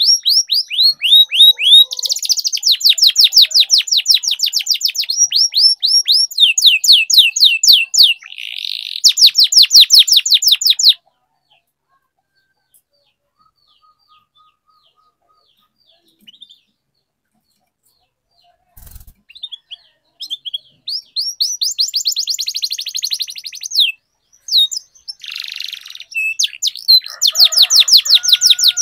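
Domestic canary singing in long runs of rapid, high trills. The song stops for about nine seconds in the middle, then starts again.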